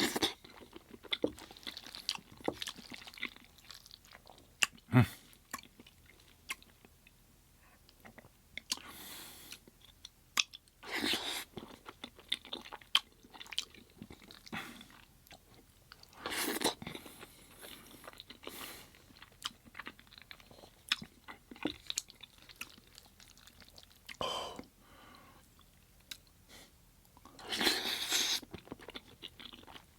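Close-miked chewing with wet mouth clicks and smacks, and several louder crunchy bites spread through, of breaded plant-based chicken nuggets.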